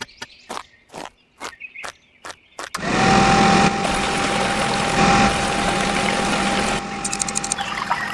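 A few sharp clicks, about two a second, then a mini water pump starts about three seconds in: a steady whine from its small motor under loud rushing, pouring water.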